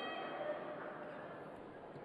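Quiet background of a large sports hall between rallies: faint, even room noise and distant murmur with no shuttle strikes.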